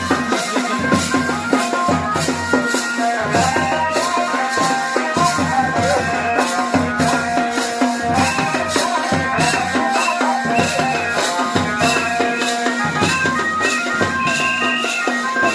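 Tandi folk dance music: a steady percussion beat of about two strokes a second with a rattling shaker, under held melody notes.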